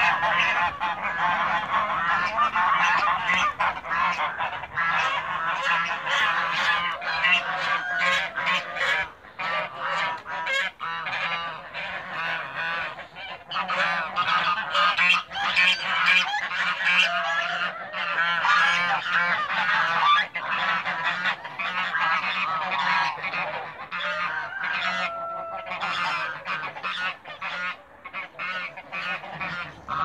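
A flock of domestic geese, African and Toulouse, honking without a break, many short calls overlapping.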